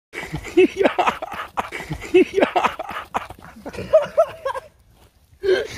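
People imitating animal noises with their voices: a rapid, irregular string of short pitched yelps and grunts that dies away for a moment near the end.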